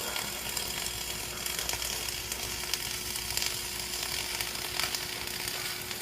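Electric arc welding: the arc crackling and sizzling steadily as a weld pass is run, with a faint steady hum underneath.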